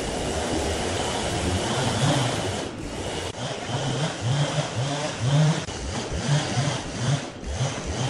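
Large sawmill band saw running, its blade cutting lengthwise through a big log of red incense wood with a steady rasping hiss. Short low hums come and go in the second half.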